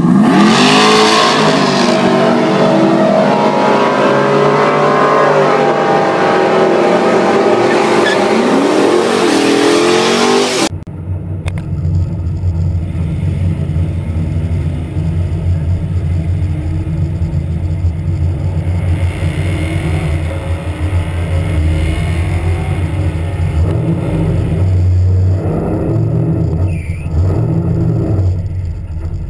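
A car's engine at full throttle accelerating down a drag strip, its pitch climbing and dropping back at each gear change. About ten seconds in the sound cuts to a car engine running steadily at low speed close by with a deep rumble.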